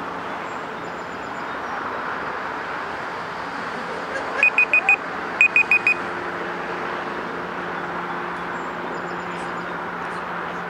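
Two quick sets of four short, high-pitched beeps, about a second apart, over a steady rushing background noise.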